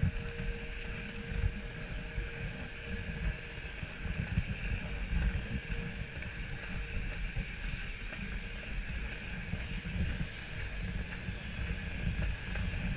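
Wind buffeting the microphone during a ski chairlift ride: an uneven, gusting rumble over a steady hiss.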